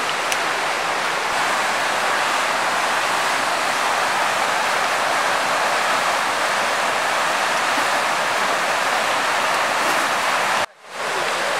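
Mountain river rushing over rocks, a steady even rush. It cuts out for a moment near the end.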